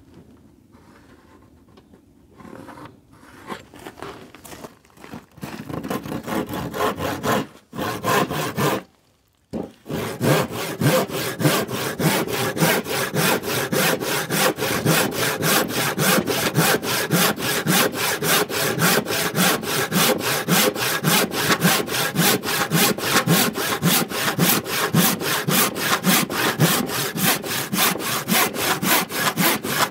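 Hand saw crosscutting a softwood board. It starts with a few short, uneven strokes and has a brief silent break about nine seconds in. After that comes a steady run of fast, even strokes through the wood.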